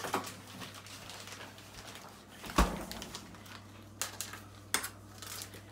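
Refrigerator door shutting with a thud about two and a half seconds in, then a few clicks and rustles of a plastic bag of grated cheese being handled and opened.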